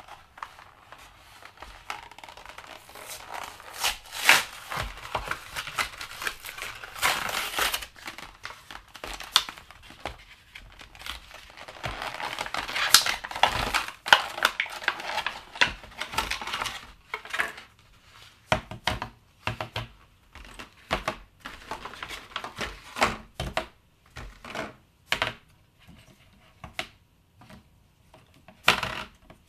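Hands crinkling and handling plastic, dense and continuous through the first half, then a run of separate short taps and clicks as play dough and plastic tools are worked on a table.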